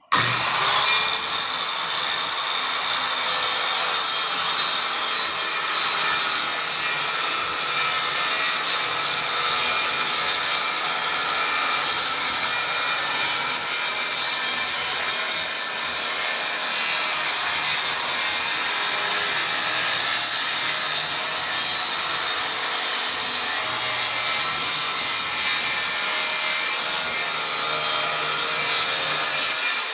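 Circular saw starting up and cutting through plywood in one long, steady cut, the blade's whine settling into a constant pitch.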